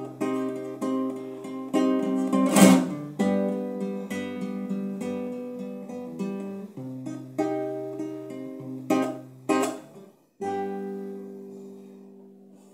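Nylon-string classical guitar playing a closing instrumental passage of plucked notes and chords, with a loud strummed chord early on and two more near the end. It ends on a final chord that rings and fades away.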